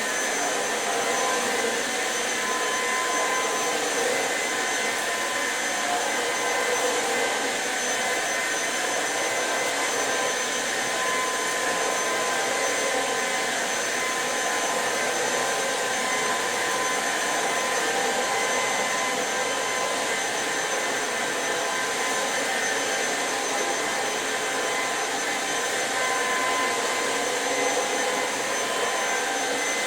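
Electrolux Pure F9 cordless stick vacuum running steadily at full power while vacuuming: a constant rushing noise with a steady high whine from the motor.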